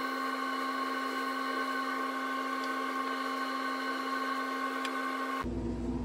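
A steady electric motor hum with a high whine, running evenly, then changing abruptly to a deeper steady hum about five seconds in.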